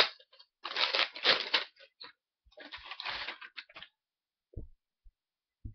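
Crinkly packaging and a shirt rustling as they are handled, in two stretches of about a second each, followed by two soft low thumps near the end.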